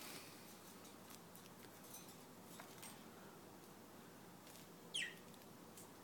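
Near silence with a few faint clicks, then about five seconds in a single short chirp that falls quickly in pitch, from a small pet parrot.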